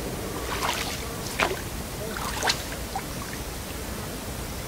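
Oars of an inflatable rowing boat dipping and splashing in the water, several uneven strokes in the first three seconds, then quieter.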